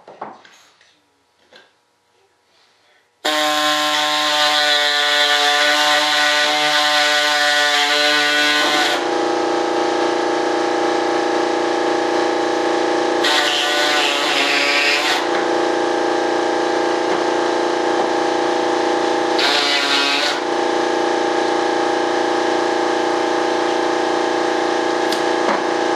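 A small power tool's motor switches on about three seconds in and runs at a steady, unchanging pitch. It turns briefly harsher twice, once around thirteen seconds in and again around twenty.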